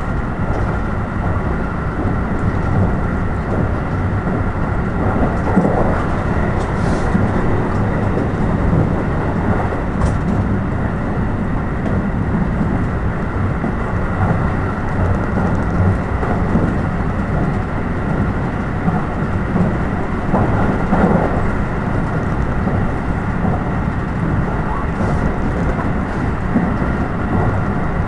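Steady running noise heard inside an electric train moving at speed: a continuous low rumble of the wheels on the rails with a faint steady whine, swelling briefly a couple of times.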